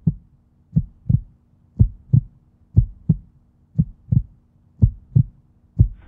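Heartbeat sound effect: a low double thump about once a second, over a faint steady low hum.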